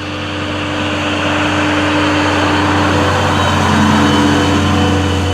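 Tractor engine running steadily, swelling in loudness over the first couple of seconds and then holding, with a constant low hum.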